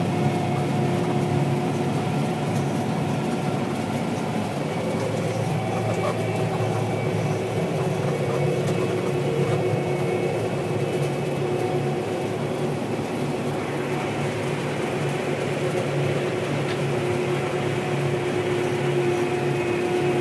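Gleaner R72 combine running steadily while harvesting wheat, heard from inside the cab: a constant machine drone with a steady whine over it.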